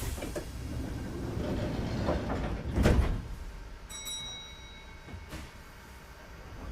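Passenger doors of a Kintetsu 2430-series train sliding shut, ending in a loud thud about three seconds in, followed by a brief high tone.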